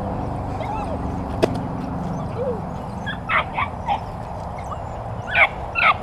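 Dutch Shepherd puppy yipping while chasing a lure on a line: about five short, high yips from halfway through, the two loudest near the end, over a steady low hum, with a single sharp click a second and a half in.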